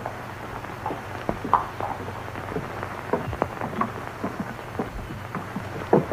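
Horses' hooves thudding and clopping irregularly on a dirt street, over the steady hum of an old film soundtrack; the knocks come loudest near the end.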